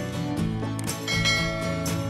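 Background music: held instrumental notes over a steady beat.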